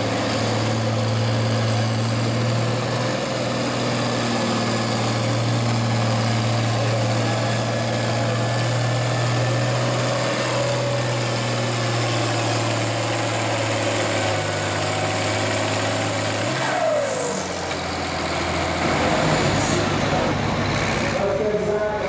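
International Harvester farm tractor engine pulling a weight-transfer sled at a steady, held pitch. About three-quarters of the way through it is throttled down sharply as the pull ends, then runs on lower and rougher.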